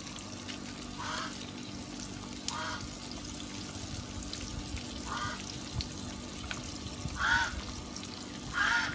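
Fish broth simmering in an electric skillet over a steady low hum, while poultry nearby gives five short honking calls spaced a second or two apart.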